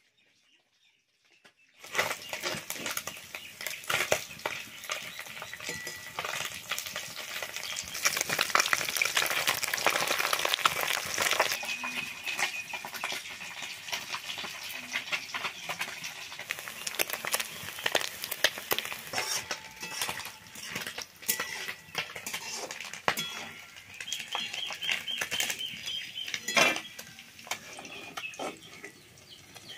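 Small fish frying in oil in an aluminium kadai, sizzling, while a metal spatula scrapes and clinks against the pan as they are stirred and turned. The sound starts about two seconds in.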